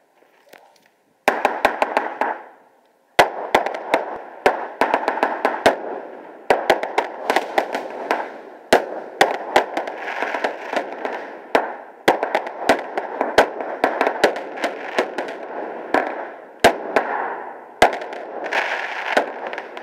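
Multi-shot consumer firework cake firing: a rapid string of sharp pops over continuous crackle. It starts about a second in, stops briefly near three seconds, then fires on steadily.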